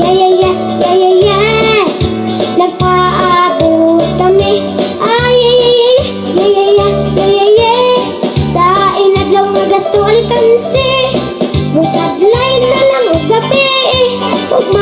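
A boy singing into a microphone over backing music, holding a drawn-out "ay-ya-ya-yay, ay-ya-ya, yeah" run. A steady bass beat repeats about twice a second underneath.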